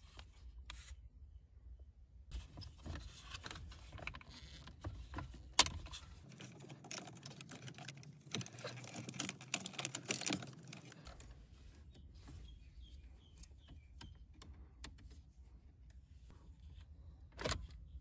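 Small plastic parts of a Toyota Corolla heater vent control knob assembly being handled: irregular clicks, rattles and scraping of plastic and cable, denser in the middle, with a sharper click about a third of the way in and another near the end.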